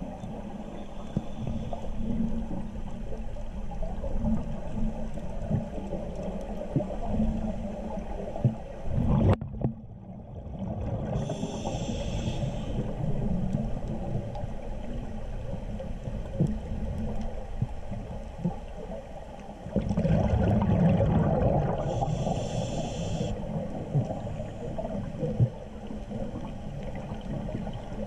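A scuba diver breathing through a regulator, heard underwater: two hissing inhales, about 11 and 22 seconds in, among a steady low gurgle of exhaled bubbles.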